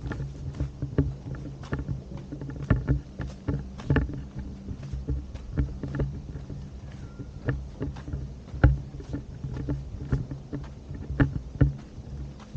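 Irregular knocks and clicks of footsteps and hand-held camera handling while walking, over a low rumble of wind on the microphone.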